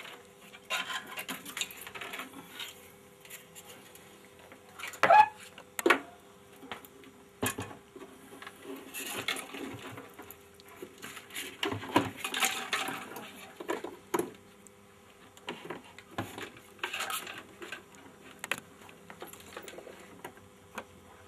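Irregular metallic clicks, knocks and rattles as the mechanism of a Victor 16 mm sound film projector and its cables are handled and fitted into the projector's case, with a few louder knocks about five seconds in and again around twelve seconds.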